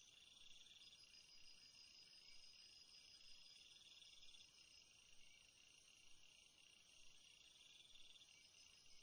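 Near silence, with faint, steady, high-pitched insect-like trilling, like crickets, that swells and fades in stretches of a few seconds.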